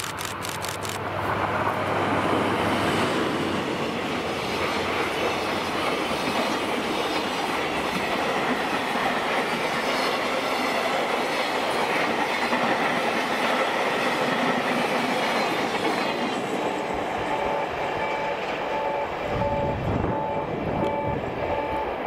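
DF200 diesel-electric freight locomotive passing close with its engine running, followed by a long string of container flat wagons rolling by with steady wheel-on-rail clatter. The noise eases in the last few seconds as the tail of the train goes past.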